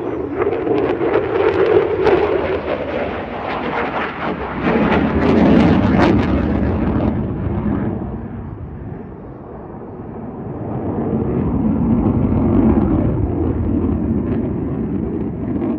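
Fighter jet flying a display pass, its loud jet engine noise crackling through the first half, then fading for a few seconds about halfway and building again as the jet comes back around.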